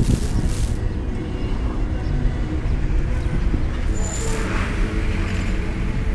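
Engine and road noise inside a moving Toyota: a low, steady rumble, with brief hiss about four seconds in.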